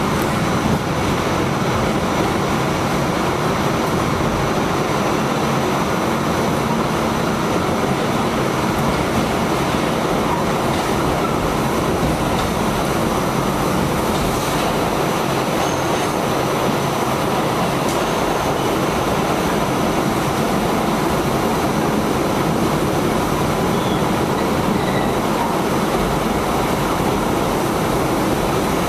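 Steady running noise of an R46 subway train heard from inside the car, wheels on rails at speed, with a thin high-pitched whine over the first part.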